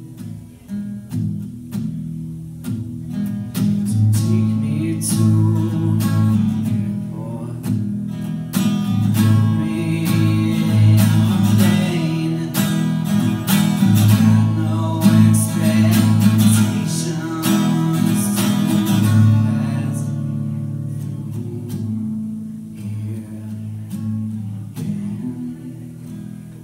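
Acoustic guitar strummed and picked in a slow blues, with a man singing over it through the middle; the playing quietens over the last several seconds.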